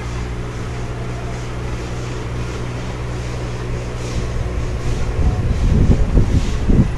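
Aquarium air pump humming steadily, driving a bubble curtain in the tank. Near the end come a few louder low rumbling bumps.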